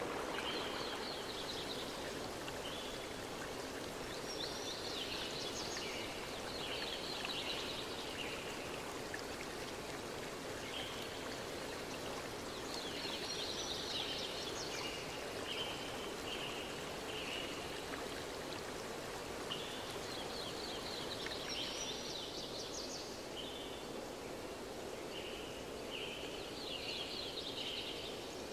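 Steady rushing, stream-like water noise with bird chirps recurring in short clustered phrases every few seconds, a nature ambience.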